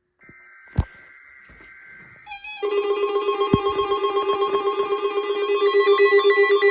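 Weather alert radio receiver activated by a weekly test signal: a faint steady high tone, a click just under a second in, then about two seconds in the receiver's loud electronic alarm starts, pulsing about eight times a second.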